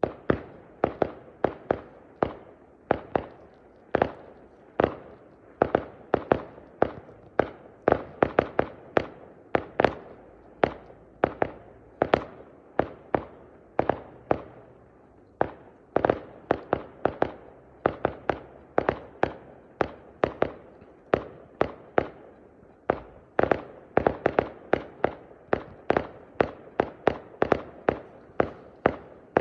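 Fireworks display: a rapid, continuous barrage of sharp bangs from bursting fireworks, about two a second, starting suddenly and keeping up without a pause.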